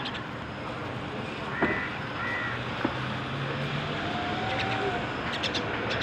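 A few short whistled notes and chirps from common mynas over a steady background hum of traffic, with two sharp clicks.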